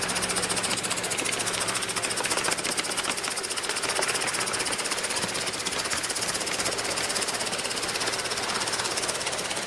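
Large-scale model steam locomotive running along its track: a fast, even clattering rhythm, with a low hum underneath for the first few seconds.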